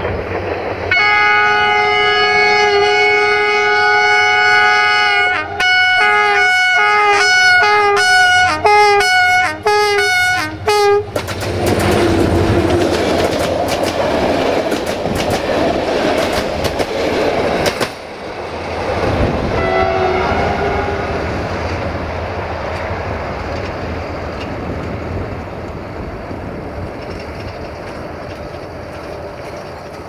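Diesel locomotive 65-1300-6's horn sounds a long chord of several tones, then a quick run of short blasts. The train then passes close by, its wheels clicking over the rail joints. A brief horn toot comes about twenty seconds in, then the rumble fades as the train moves away.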